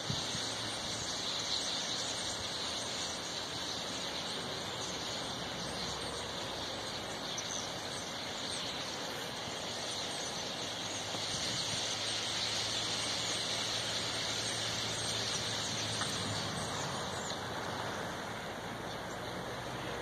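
A huge flock of small birds calling all at once from power lines, a dense, steady, high-pitched din of countless overlapping calls.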